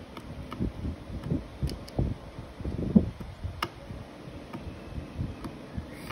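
Precision screwdriver working small screws inside an opened iPhone 6, with a few thin sharp clicks over irregular low thumps and rumble.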